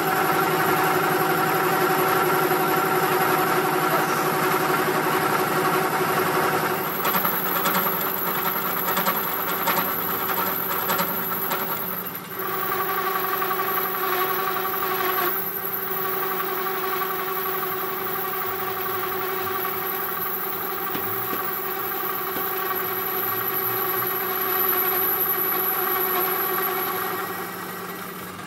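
Metal lathe running with a steel workpiece spinning between chuck and tailstock center: a steady whine of motor and gears, made up of several tones. From about seven seconds in, irregular ticking and scraping runs for several seconds. The sound drops in level near the end.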